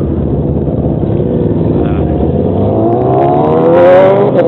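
Motorcycle engine and exhaust running with a rough rumble, then accelerating with a rising pitch that grows louder over the last two seconds.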